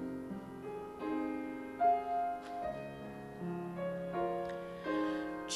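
Soft instrumental accompaniment playing slow chords in an interlude of a worship song, with no singing.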